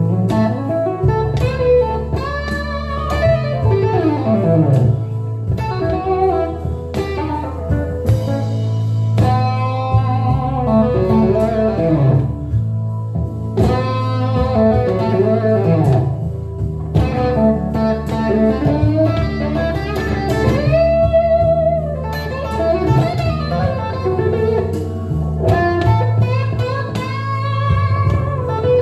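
Telecaster electric guitar playing an improvised blues lead, with many bent notes that slide up and down in pitch, over steady low bass notes that change every few seconds.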